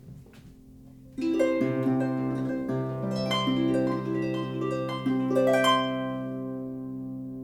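34-string Celtic harp being played: faint ringing notes, then a phrase of plucked notes begins about a second in, with several notes sounding together over a sustained bass, and near the end the last chord is left to ring and fade.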